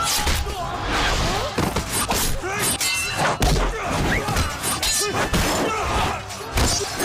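Fight-scene sound effects: a rapid run of blows, thuds and short ringing metal clashes, mixed with fighters' shouts and grunts over background music.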